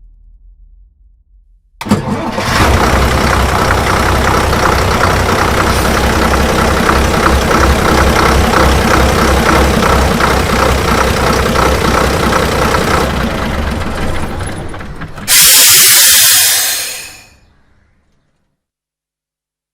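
School bus engine starting with a sudden catch about two seconds in, then running at a steady idle with a fine rhythmic beat. Near the end a loud hiss bursts out for about two seconds, and the engine sound fades away as the bus pulls off.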